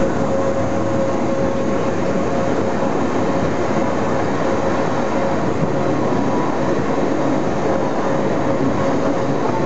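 Pilatus Railway electric cogwheel railcar running steadily up its Locher rack, heard from inside the car: a constant rolling and grinding noise with a steady whine held at one pitch.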